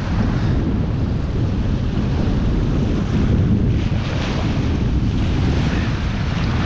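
Strong gusty wind buffeting the microphone in a steady low rumble, with small choppy waves washing onto the sandy shore.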